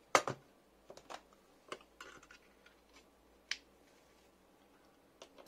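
Irregular light clicks and knocks of a small circuit board and its USB socket being handled and worked loose inside a metal chassis, the loudest a quick pair of sharp clicks right at the start.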